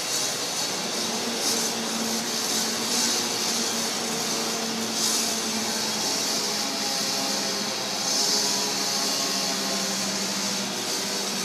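Pile-driving rig running steadily: a continuous engine drone with a hiss over it, and no hammer blows.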